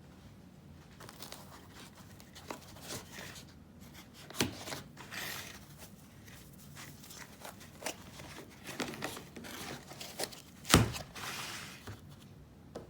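Packaging being handled: crinkling and tearing, with scattered clicks and a louder thump about eleven seconds in.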